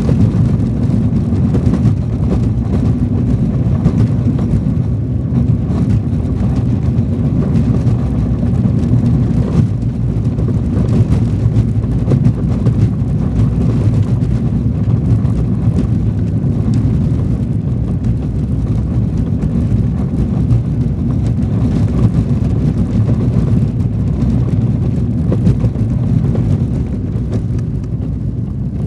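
Car driving along a sandy dirt track, heard from inside the cabin: a steady low rumble of engine and tyres on the unpaved surface.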